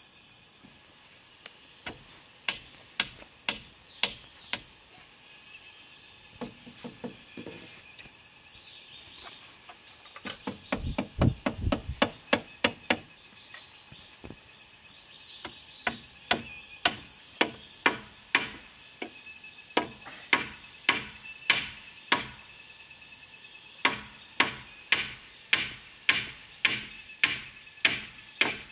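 Machete blows chopping into a wooden pole: single strikes at first, a quick flurry of heavier blows about halfway through, then steady strikes roughly one or two a second. Insects shrill steadily behind.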